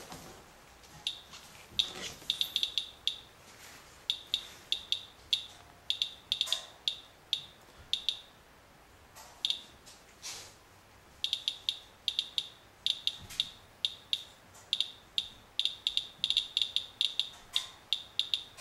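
Radalert Inspector Geiger counter's audio chirps, a few a second at random intervals and often bunched together, as it counts radiation from a wipe sample. This is definite activity that the owner puts at roughly five times background.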